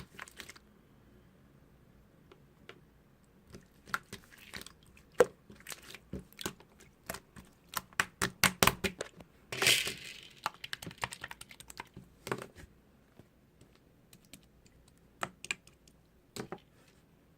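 Slime being squeezed and poked by hand, giving irregular popping clicks and crackles. There is a quick run of pops about eight seconds in and a longer crackly squish just after.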